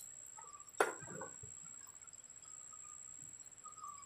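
German mess kit's aluminium lid-pan set back on the pot with one sharp metal clack about a second in, over a steady high-pitched insect buzz with a few faint chirps.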